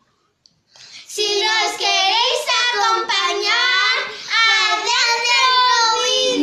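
A young girl singing solo, starting about a second in with held, wavering notes, then a long downward slide in pitch near the end.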